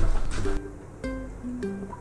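Background music: a light melody of short plucked notes, with low knocks in the first half second.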